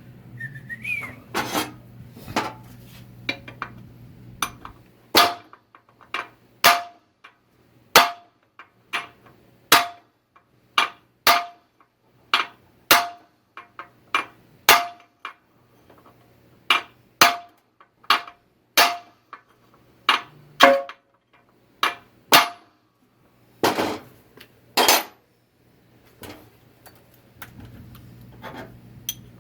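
Hand hammer striking steel again and again, a little more than one blow a second, each hit with a short metallic ring. This is the kind of hammering done to drive a tool onto a stuck transmission bolt. The blows pause briefly near the end, then come back as two loud hits.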